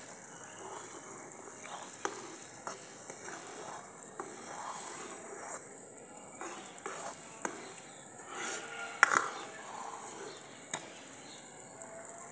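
Steel ladle stirring simmering kadhi in a metal karahi, with scraping and a few short clinks against the pan; the sharpest clink comes about nine seconds in.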